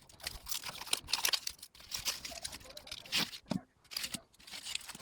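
Plastic wrapping and packaging crinkling and tearing, with quick irregular clicks and taps as mini tins and their booster packs are unwrapped and handled.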